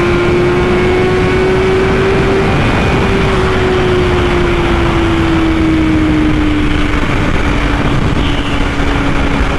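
BMW S1000RR's inline-four engine holding a steady high-speed cruise, its note rising slightly and then easing down slowly, under heavy wind roar on the rider's microphone.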